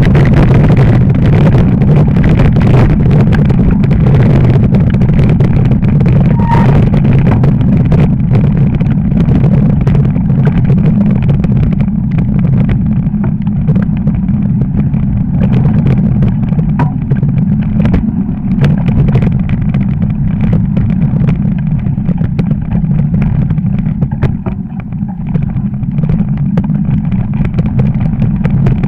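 Wind rushing over the handlebar action camera's microphone during a fast fatbike descent on a snowy road: a loud, steady low rumble with the fat tyres on snow and scattered clicks and knocks from the bike. It eases briefly a little before the end.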